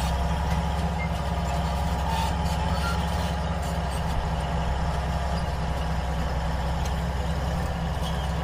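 An engine running steadily at a constant low pitch, with no change in speed.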